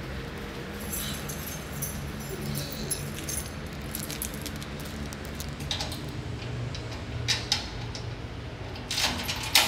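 Keys jangling and clinking in a few short bursts while being handled, loudest near the end, over a low steady hum.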